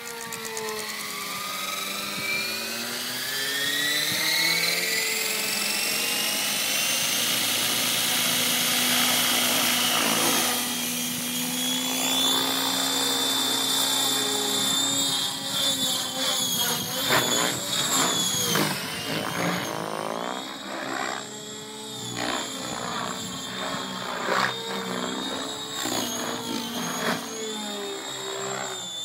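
Electric Align T-Rex 700 RC helicopter's motor and rotors spooling up under a slow-start ESC, the whine rising steadily in pitch for about twelve seconds. It then settles to a steady governed head speed as the helicopter lifts off, and the whine and rotor sound waver as it flies.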